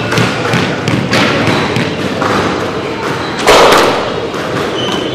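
Squash ball being struck by rackets and thudding off the court walls and floor in a rally, a few sharp hits in the first couple of seconds. A brief louder noise follows about three and a half seconds in.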